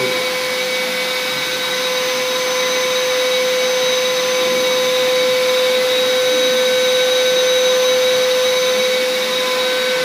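Prestige Typhoon 05 1200-watt wet & dry canister vacuum cleaner running steadily: an even motor whine over the rush of air.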